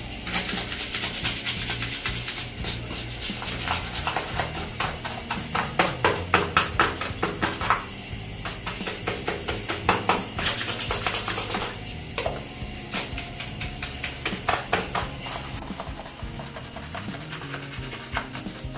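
Scrubbing in quick, irregular strokes, as when cleaning a washing machine's lint filter mesh, over background music.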